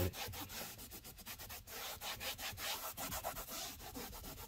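Microfibre cloth wiping the car's dashboard trim in quick back-and-forth strokes, a steady scrubbing hiss.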